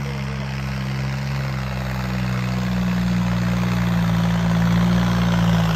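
Modified, turbocharged four-cylinder John Deere tractor engine running hard under heavy load as it drags a weight through sand. A steady deep drone that slowly gets louder.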